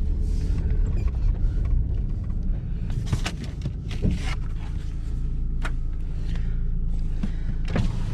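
A vehicle engine idling with a steady low rumble, with a few sharp clicks and knocks over it.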